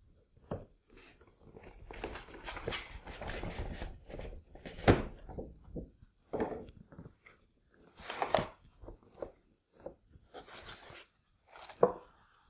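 Cardboard model box being opened and unpacked by hand: irregular bursts of scraping, rustling and knocks of cardboard and foam packing, with one sharp knock about five seconds in.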